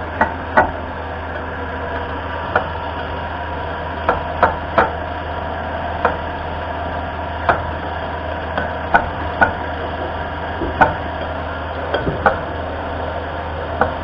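A diesel tractor's fuel injection pump running on a test bench at its idle setting: a steady mechanical hum with irregular sharp clicks about once a second.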